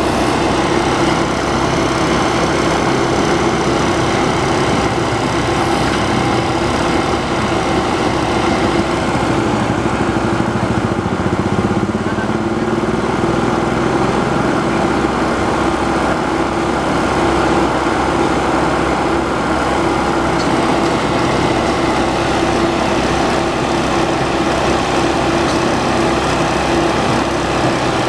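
Heavy rail track maintenance machine running steadily, its diesel engine and hydraulics working with a steady whine and no clear breaks.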